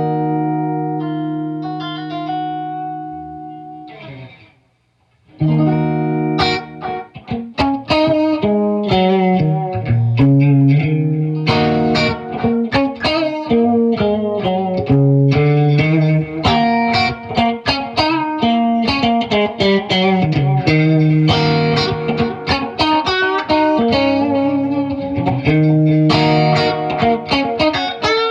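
Electric guitar played through a delay pedal into a Peavey 5150 II amp. A held chord fades out over the first four seconds. After a short silence comes a run of quickly picked notes, overlapping with their echoes, that carries on to the end.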